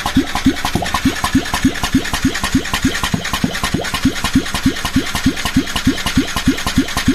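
Yamaha Tricity 125's single-cylinder engine being cranked by its electric starter without firing: an even chug of about five strokes a second. The owner traced the no-start to low compression from a badly worn piston and cylinder.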